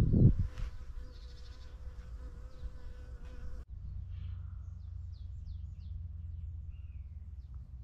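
A steady buzzing hum, with low gusts of wind on the microphone at first, cuts off sharply about three and a half seconds in. After that comes a low wind rumble with scattered short bird chirps.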